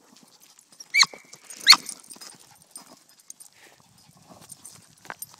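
Small dog barking twice in quick succession, two short, sharp, high barks about a second apart, with faint scuffling of paws in wood chips around them.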